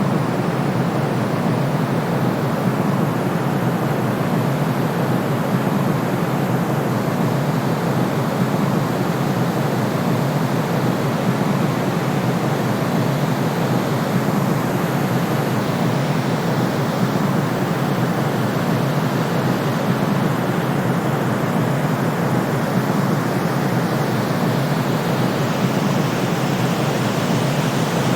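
Steady white noise used as a sleep sound: a constant, unchanging rushing hiss, weighted toward the deep end rather than bright.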